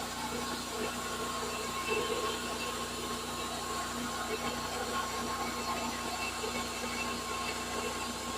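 Cook's band sawmill running steadily: a constant mechanical hum with a steady higher whine.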